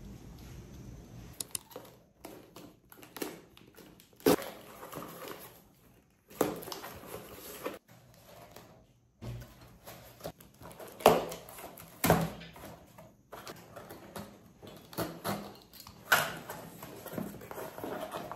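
Cardboard box being opened and handled: irregular rustling and scraping with several sharp knocks, broken by a few brief drops to silence.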